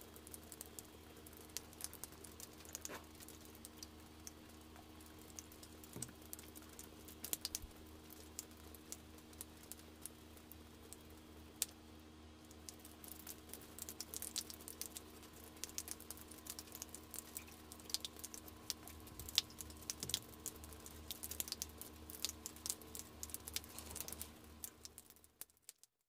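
Faint handling noise of a basketball sneaker being turned in the hands: scattered light clicks and taps, more of them in the second half, over a steady low hum, fading out near the end.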